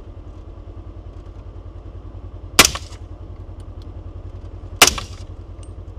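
Two rifle shots about two seconds apart, loud and sharp, over the steady idle of a Polaris XP1000 side-by-side's engine.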